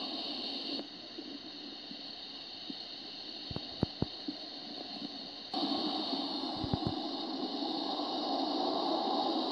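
Steady outdoor background hiss that drops away about a second in and comes back abruptly about five and a half seconds in. A few sharp clicks come in two small clusters, about four seconds in and about seven seconds in.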